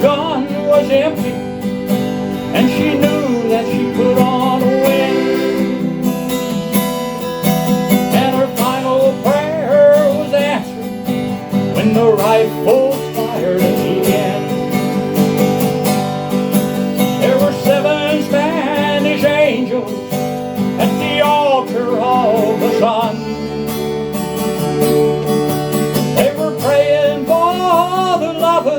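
Country band playing, with strummed acoustic guitar and a wavering sung or played melody line above it.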